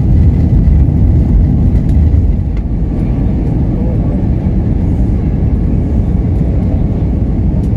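Steady low rumble of an Airbus A320 cabin in flight, the engine and airflow noise heard from inside at a window seat over the wing. It eases slightly about two and a half seconds in.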